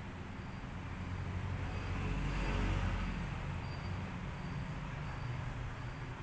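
Steady low rumble of road traffic, swelling as a vehicle passes about two to three seconds in.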